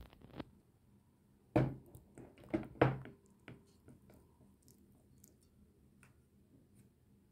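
Wooden spoon tapping and scraping against a glass mixing bowl while working soft butter: a few sharp knocks in the first half, the loudest about one and a half and three seconds in, then only faint light clicks.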